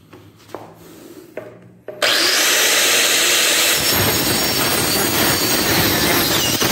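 A few light knocks as the slat is set in place, then a handheld Makita marble cutter (serra mármore) starts abruptly about two seconds in and runs at full speed. About two seconds later its blade bites into a wooden slat and saws across it.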